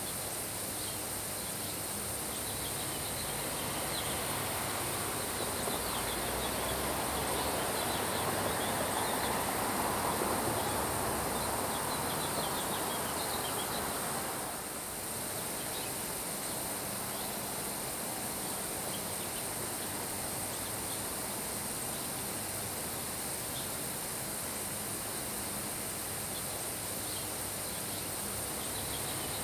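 Steady summer rain and wind hiss, swelling louder from about four seconds in and easing back about halfway through. Faint short high chirps are scattered throughout.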